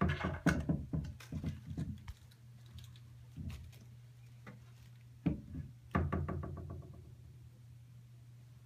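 A quick run of knocks and thumps in the first two seconds, then a few scattered single knocks, over a low steady hum.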